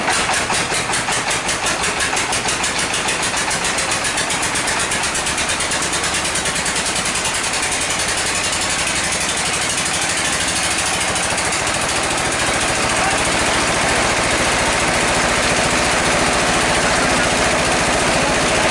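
Sawmill engine running loudly. Its pulsing beat at first evens out into a steady run, which grows a little louder about two-thirds of the way in.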